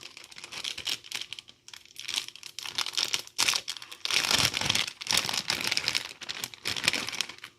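Plastic wrapping of sliced cheese crinkling and tearing as it is handled and opened, in irregular bursts of crackle.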